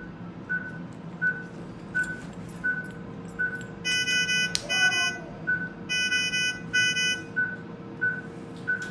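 Anaesthetic patient monitor beeping steadily with the cat's pulse from a pulse-oximeter clip, about three short beeps every two seconds. A brighter, buzzy alarm tone sounds twice, about four and six seconds in, over a faint steady hum.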